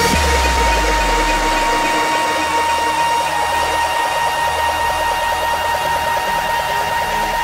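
Psytrance breakdown: a held high synth tone over a dense, noisy synth texture, with the deep bass fading out about two seconds in.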